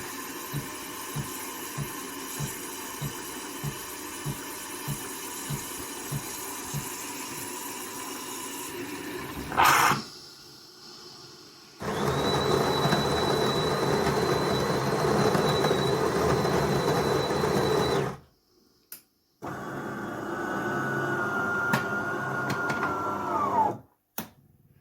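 Bean-to-cup espresso machine working through a cycle: a steady hum with low pulses about twice a second, then two runs of loud motor noise with a high whine. The second run winds down with a falling whine about a second before it stops.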